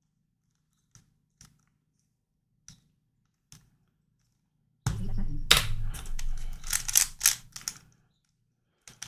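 Plastic YuXin Corner Helicopter puzzle clicking as it is turned: a few separate clicks, then about five seconds in a fast, loud run of clacking turns lasting about three seconds, with more clicks near the end.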